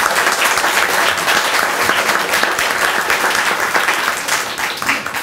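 Audience applauding, a dense patter of many hands clapping that begins to die away near the end.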